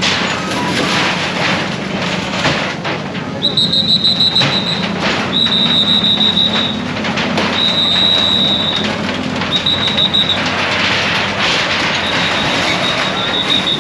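A shrill whistle blown in about five long blasts, each roughly a second long and about two seconds apart, over a steady din of street noise.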